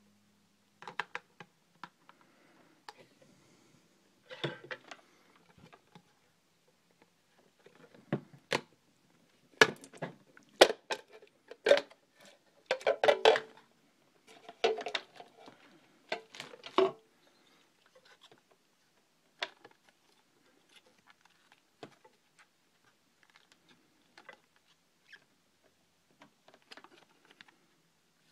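Unboxed camera accessories and packaging being handled: irregular sharp clicks, knocks and short rustles, busiest and loudest in the middle, sparse and faint toward the end.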